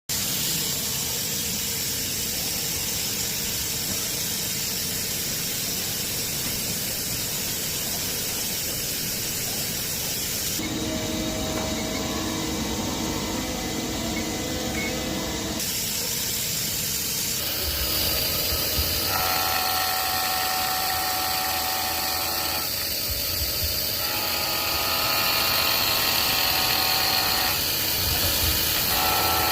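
CNC milling machine running with a steady hiss. Whining motor tones come in about a third of the way through and start, stop and shift pitch several times, as the machine is moved while setting the Z-axis zero.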